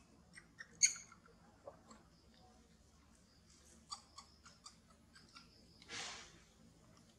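Faint scattered short clicks and high chirps, with a brief rustle about six seconds in.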